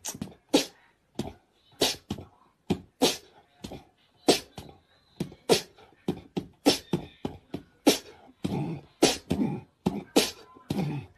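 A cat hissing and spitting over and over in short, sharp bursts, about two a second: the defensive hiss of a spooked cat.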